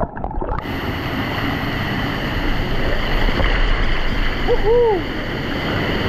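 A camera plunges into a pool off a rock water slide: the sound goes muffled underwater for about half a second, then surfaces into the steady rush of a waterfall and sloshing water. A short rising-and-falling voice sound comes about five seconds in.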